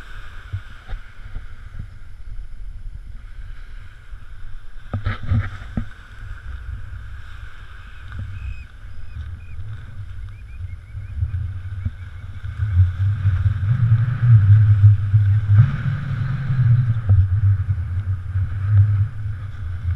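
Wind buffeting the microphone in an uneven low rumble, growing stronger in the second half, over the steady hiss of surf on the beach. A brief cluster of knocks comes about five seconds in.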